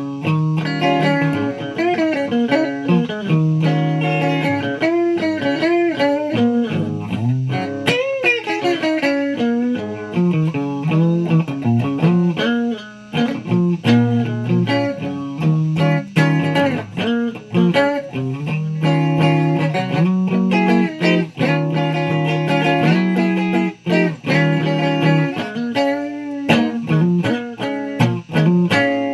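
Music on a plucked string instrument, likely a guitar, playing a continuous run of notes and chords. Some notes bend in pitch, most clearly about eight seconds in.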